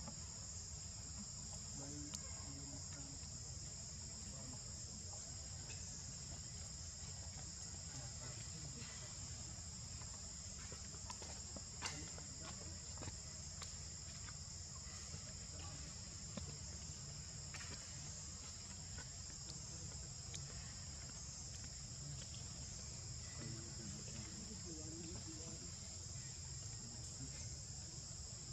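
Steady, unbroken high-pitched chorus of insects, with a low rumble underneath and a few faint sharp clicks, the clearest about twelve seconds in.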